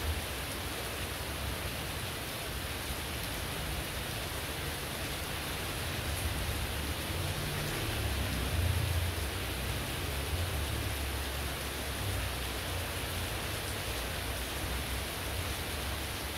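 Heavy rain falling steadily, a dense even hiss. A low rumble swells and fades about halfway through.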